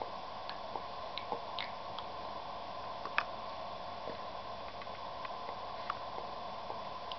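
Soft, irregular little clicks and smacks of a baby chewing food and sucking her fingers, over a steady background hum; one click about three seconds in stands out.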